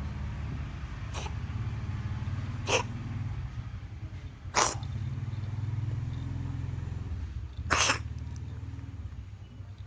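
A cat coughing in four short, sharp bursts spaced a second or more apart, the last one a little longer and the loudest.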